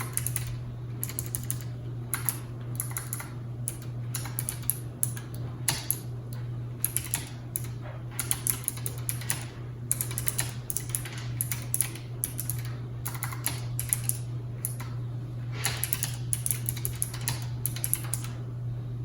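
Typing on a Keychron K1 low-profile mechanical keyboard with clicky blue switches: irregular runs of sharp key clicks broken by short pauses. A steady low background hum runs underneath.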